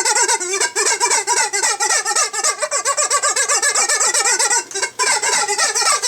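Squeaking back scratcher drawn in a continuous wavering squeal that bends rapidly up and down in pitch, with a steady tapping of forks played as drums.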